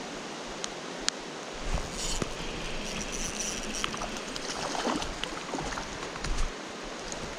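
Steady rushing of flowing river water, with scattered light ticks over it.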